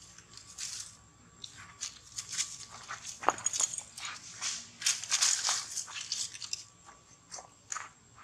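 Dry leaf litter crunching and rustling in irregular bursts as macaques scuffle and scamper over it, busiest near the middle.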